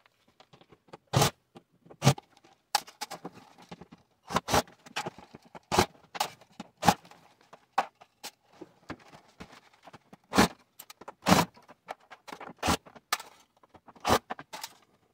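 Irregular knocks, taps and clatter of a plastic refrigerator liner being handled and shifted about during disassembly.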